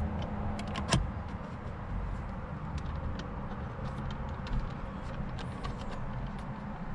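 Steady low hum inside a vehicle cabin, with scattered light clicks and a sharper click about a second in.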